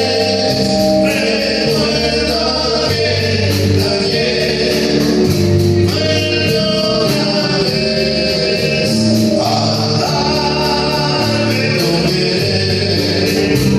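Live band playing a song: several voices singing over guitar and bass, with an evenly repeating cymbal tick keeping the beat.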